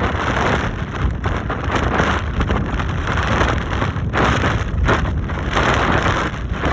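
Strong wind buffeting the microphone: a loud, rumbling roar that swells and drops in gusts.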